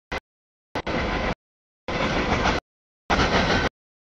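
CSX freight train rolling by on the rails. It is heard in short chopped snatches of under a second, about one a second, each starting and stopping abruptly with dead silence between.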